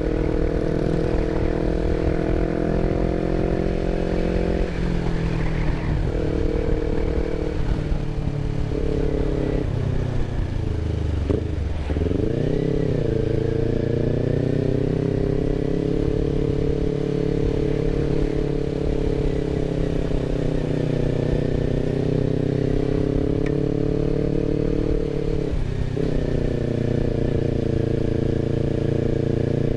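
Kawasaki Ninja 250 FI parallel-twin engine running through a DX Generation RVR short aftermarket exhaust while the bike is ridden at low, steady revs in traffic. The revs shift a little about four seconds in and again near the end, and drop briefly then pick up again about eleven to thirteen seconds in.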